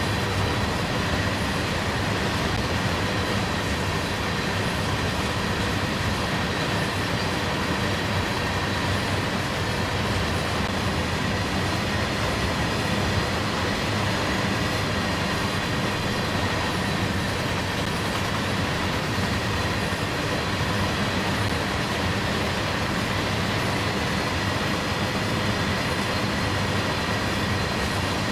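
CSX freight train rolling steadily past, its wheels and cars making a continuous running noise with a faint steady high tone over it.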